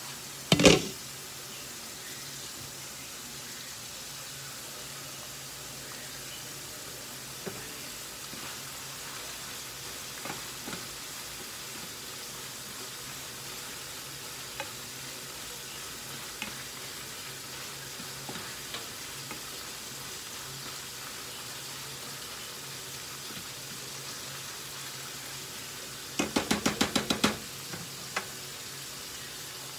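Ground beef sizzling steadily in an open frying pan. There is a loud knock about a second in, scattered light clicks throughout, and a quick run of about eight knocks near the end.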